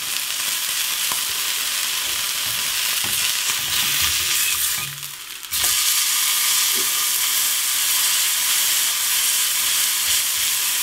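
Burger and bacon frying in pans: a steady, loud sizzle. About five seconds in it drops away for under a second, then comes straight back.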